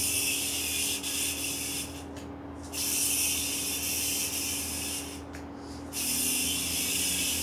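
Yo-yo spinning on its string, a high whirring hiss that comes in three stretches of about two seconds each, each starting and stopping sharply as the yo-yo is thrown and caught.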